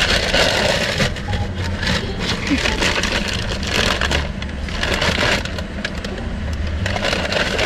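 Paper takeaway bag rustling and crinkling as it is handled, over the low hum of a car engine idling.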